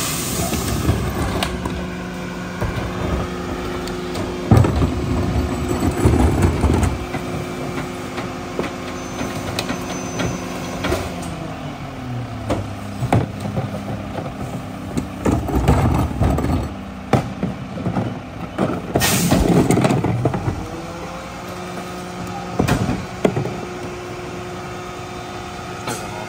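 Mack diesel rear loader garbage truck running, its engine revving up to drive the McNeilus packer's hydraulics, dropping back about halfway and revving up again for the next cycle. Repeated bangs and clatter from carts being tipped and trash landing in the hopper.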